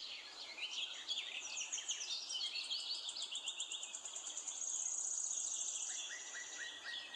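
Small birds singing and chirping in quick, high notes over a faint hiss, with a fast high trill lasting about two seconds in the middle and a run of short falling chirps near the end.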